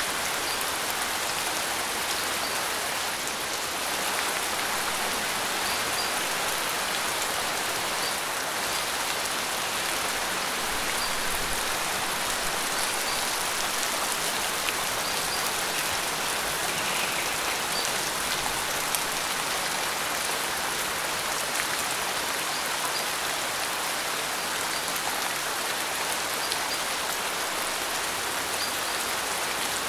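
Steady rain: an even hiss of falling drops, with a few slightly louder single drops now and then.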